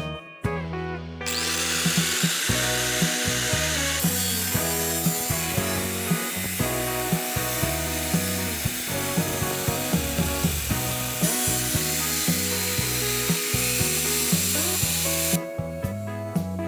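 A power tool working material with a steady, harsh noise that starts about a second in and stops near the end, over background music.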